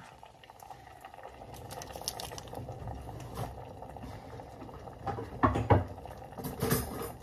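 A pot on an electric stove bubbling steadily. A few clinks and knocks of pots and utensils come about five to seven seconds in.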